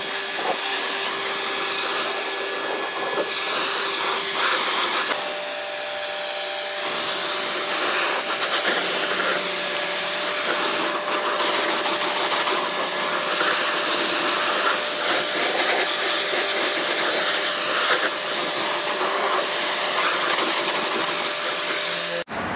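Pressure washer running and spraying water: a steady motor whine under a loud hiss of spray. The whine steps up in pitch about five seconds in, and the sound cuts off abruptly near the end.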